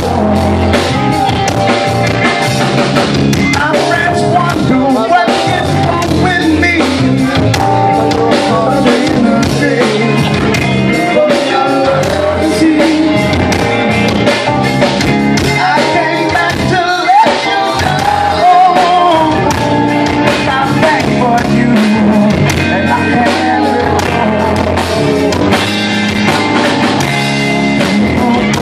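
Live blues-rock band playing loudly: electric guitar over a drum kit and keyboard.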